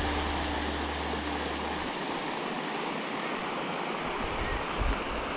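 Water spilling over a concrete weir and splashing into the pool below, a steady rushing wash. The tail of background music fades out in the first two seconds.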